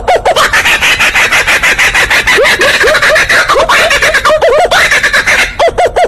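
Laughing kookaburra calling its laugh: rapid hooting notes, about six a second, break into a harsh, rattling cackle for most of the stretch, then return to the fast hoots near the end.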